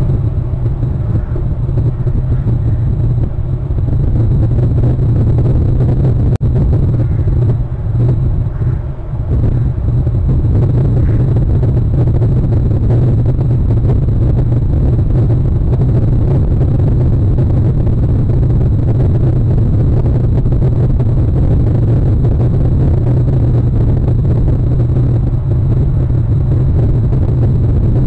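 A steady, loud low rumble with no clear pitch, with a brief dropout about six seconds in.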